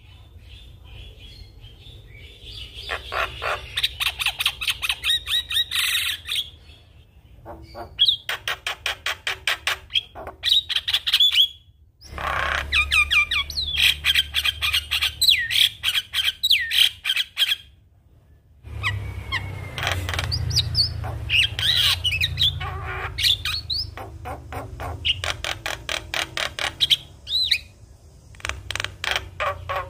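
Javan myna (jalak kebo) singing a busy, varied song: fast runs of harsh repeated notes, chatter and whistled glides, in several long phrases broken by short pauses.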